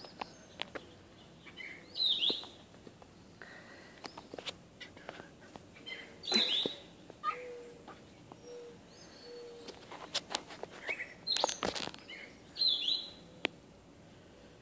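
A domestic cat giving a few short meows with a chipmunk held in its mouth, with pauses of a few seconds between them.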